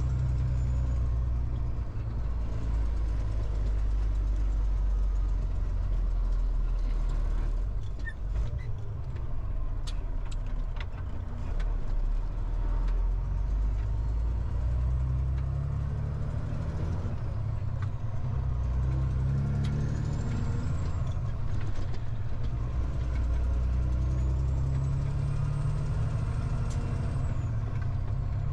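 A truck's diesel engine running under way, heard from inside the cab. Its pitch rises and falls as the truck changes speed, with a few sharp clicks and rattles about ten seconds in.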